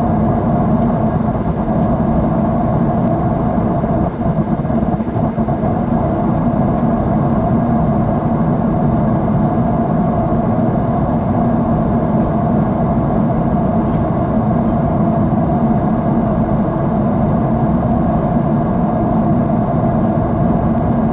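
Jet airliner in flight heard from inside the cabin at a window seat: the steady engine and airflow drone, a low, unbroken rumble with a constant hum.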